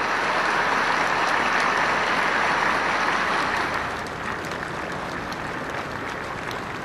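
Large crowd applauding, a dense steady clapping that is loudest at first and dies down somewhat about four seconds in.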